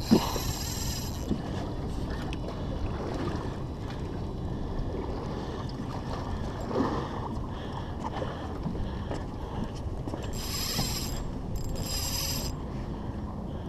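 Spinning reel whirring in short spells, once at the start and twice in quick succession near the end, over a steady low rumble of wind and water.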